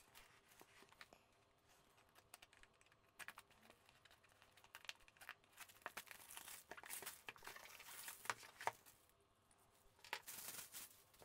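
Faint crinkling and tearing of plastic shrink-wrap as it is cut with scissors and pulled off a cardboard kit box, a run of short crackles that grows busier in the second half.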